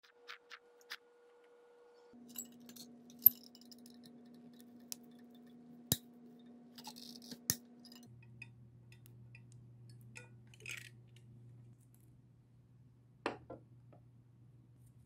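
Sparse sharp clicks and light clinks as hands work materials against a small glass tank, over a faint low hum that changes pitch abruptly twice.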